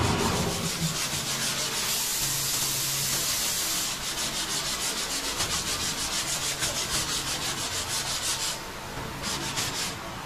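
Body filler on a car's rocker panel being sanded by hand: sandpaper rasping back and forth in quick, even strokes, several a second.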